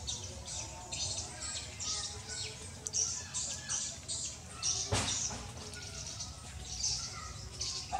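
Small birds chirping in quick repeated bursts, with a sharp click about five seconds in.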